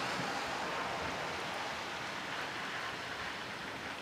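Steady rain falling during a thunderstorm, an even hiss that eases slightly towards the end.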